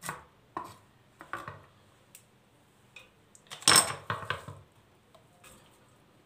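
A few last knife strokes chopping onion on a plastic cutting board, then a louder cluster of clattering knocks about three and a half seconds in as the chopped onion is gathered up, followed by a few faint clicks.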